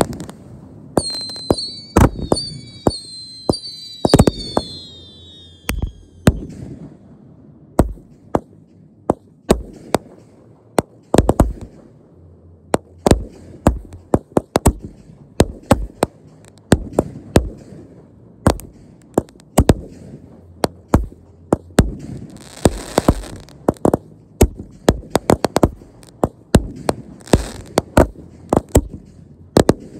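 Fireworks going off in an irregular, rapid run of sharp bangs. In the first few seconds several whistles glide down in pitch together, and a hissing burst comes about 23 seconds in.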